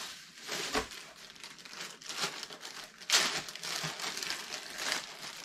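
Plastic wrapping crinkling and rustling in irregular handfuls as a toy is unwrapped by hand, loudest about three seconds in.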